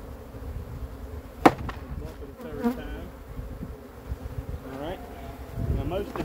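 Honeybees from a freshly shaken-out package buzzing around the open hive, single bees flying close past with a buzz that rises and falls in pitch. A sharp knock about a second and a half in, with a smaller one a second later, as the wooden package box is bumped on the hive.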